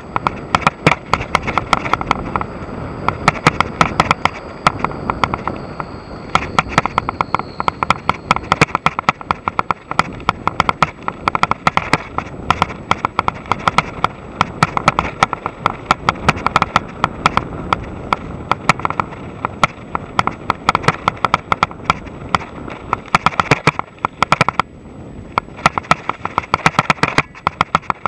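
Mongoose full-suspension mountain bike rattling over a bumpy grass and dirt trail: a dense, irregular clatter of sharp clicks and knocks over a steady rush of wind and tyre noise, loud on the bike-mounted camera.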